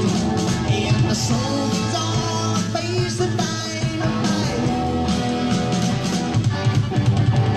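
Rock band recording: electric guitars, bass and drums playing with a sung lead vocal.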